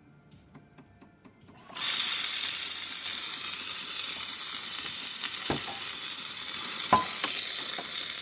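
Jura coffee machine's milk system blowing steam for a milk portion: a loud, steady hiss that starts suddenly about two seconds in, after a few faint clicks, with a couple of sharper clicks during it.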